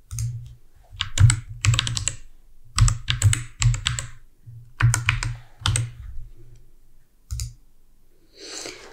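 Typing on a computer keyboard in several short runs of keystrokes with pauses between them, then a single click about seven seconds in.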